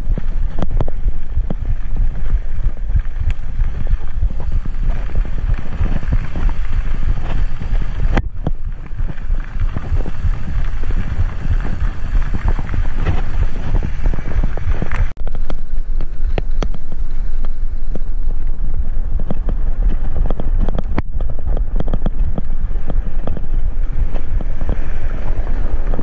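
Wind buffeting an action camera's microphone over the rolling rumble of a mountain bike on a dirt road, with frequent small rattles and knocks from the bike over the bumps. The sound breaks off abruptly a few times.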